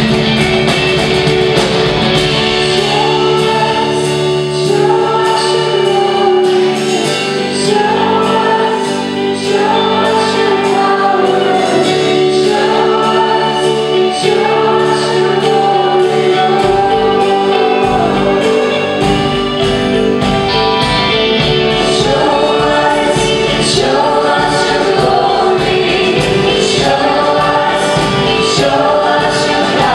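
Live worship song: a group of singers in unison with a band of acoustic guitars, violin, drums and keyboard, playing with a steady beat. A deep bass fills in a little over halfway through.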